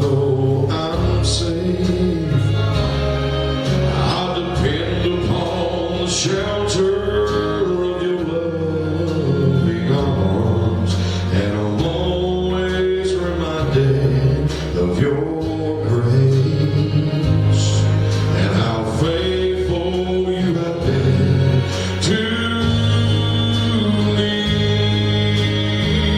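Gospel music: a man singing over instrumental accompaniment with a steady, changing bass line.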